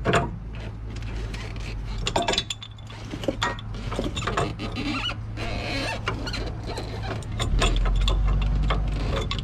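Ratchet wrench clicking in short irregular strokes, tightening the castle nut onto a new tie rod end's stud, over a steady low hum.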